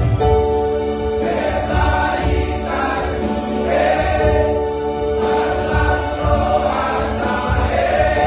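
Voices singing a Christmas gospel song in harmony over musical accompaniment, with a long held note under the shifting sung lines.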